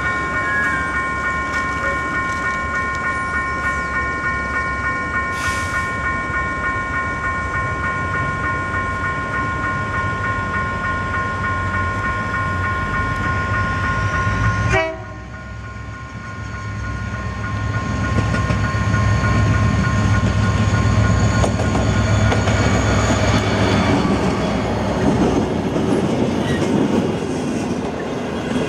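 Locomotive air horn sounding one long blast, a chord of several notes held steady over diesel engine noise, ending abruptly about halfway through. Then a diesel passenger train passing close, engine rumble and the coaches' wheels on the rails growing louder and staying loud.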